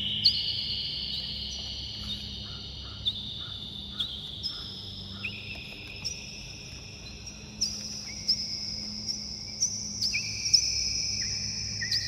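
Background music of high, bell-like chime tones, each struck and left ringing for a few seconds so that they overlap, a new one about once a second, over a low steady hum.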